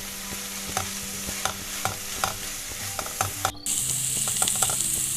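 Chopped onion, capsicum and tomato sizzling as they fry in butter and oil in a metal pan, with a spatula scraping and knocking against the pan about twice a second. About three and a half seconds in the sound breaks off briefly and the sizzle returns louder.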